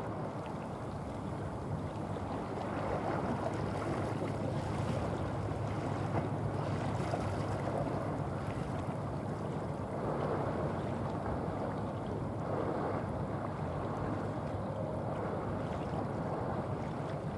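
Steady low hum of a large bulk carrier passing across the water, under the wash of waves and wind buffeting the microphone.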